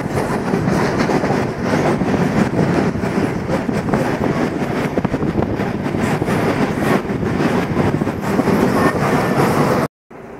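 Moving train heard from a carriage: a loud, steady rumble with the rattle and clatter of wheels on the track. It cuts off abruptly near the end, giving way to a much quieter steady room hum.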